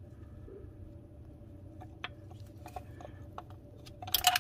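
Small clicks and taps of hands and tools working at the clutch slave cylinder's line fitting, ending in a louder, brief rattling scrape near the end.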